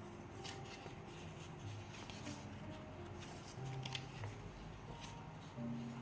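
Paper pages of a decorated scrapbook journal rustling and crinkling in short bursts as the book is handled in the hands. Soft background music plays underneath.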